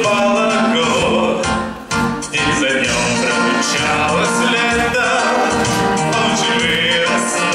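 A song: a solo voice singing over instrumental accompaniment, with a short break about two seconds in.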